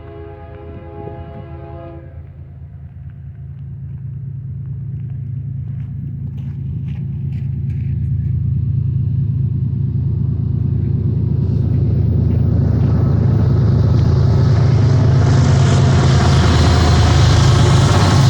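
A BNSF diesel freight locomotive's multi-chime air horn sounds one held chord that cuts off about two seconds in. The locomotives' low diesel rumble then grows steadily louder as the train approaches.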